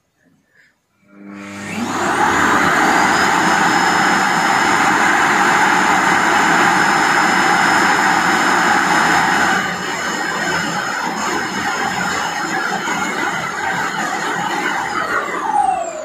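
A TTEC Robi Promaster automatic dust-disposal station's suction motor empties the docked robot vacuum's dust box into its bag. The motor starts about a second in with a rising whine and runs loud and steady. It eases a little past halfway and winds down with a falling whine near the end.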